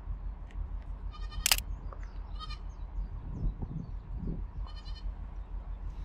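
Wild goats bleating: three short calls, at about one second, two and a half seconds and five seconds in. A single sharp click, the loudest sound, comes about a second and a half in, over a steady low rumble.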